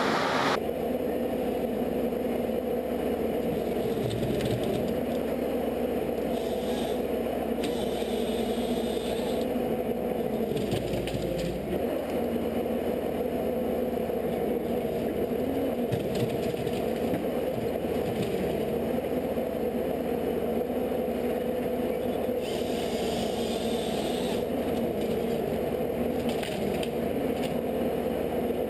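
A machine's motor running steadily, with scraping, rattling and cracking over it.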